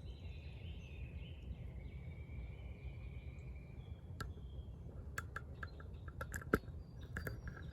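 Faint outdoor ambience with distant bird calls: thin drawn-out calls in the first few seconds, then a scatter of short sharp chirps in the second half over a low steady rumble.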